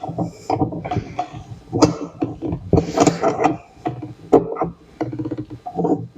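Hand work on a window assembly: irregular knocks, clicks and scraping as parts of the window frame and its clamp are handled and fitted, with a few short metallic rings.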